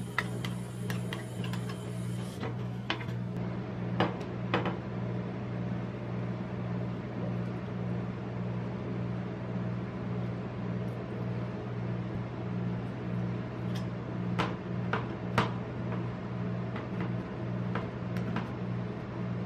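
Metal spatula blades tapping and chopping on a steel rolled-ice-cream cold plate, a quick run of clicks at first, then a few sharp strikes, a quiet stretch in the middle, and more strikes near the end. A steady low machine hum runs underneath.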